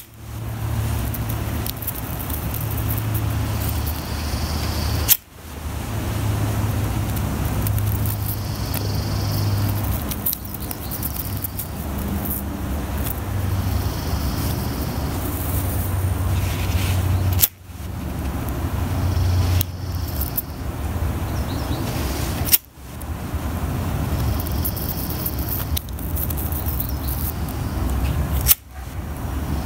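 Steady low rumble and hiss of background noise, cut off abruptly four times.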